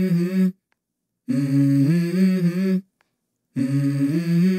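A voice humming a short two-note phrase three times, each phrase about a second and a half long and stepping up to the higher note partway through, with brief silences between.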